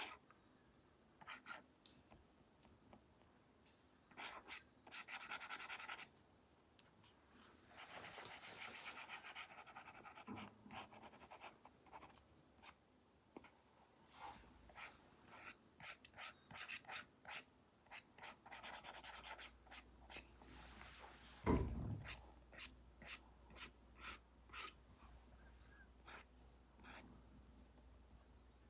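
Apple Pencil Pro tip scratching and tapping on an iPad's paper-like matte screen protector: several longer brush strokes among many short quick strokes. A single dull thump about two-thirds of the way through is the loudest sound.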